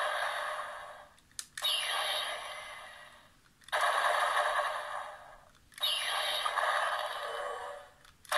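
Bandai DX Omikoshi Phoenix toy playing its electronic sound clips through its small built-in speaker, one clip after another, each about two seconds long, set off by presses of the button on its back. A light click comes before some clips. The sound is thin and tinny, with no bass.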